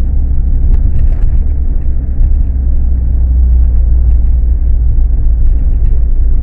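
A car being driven: a loud, steady low engine and road rumble.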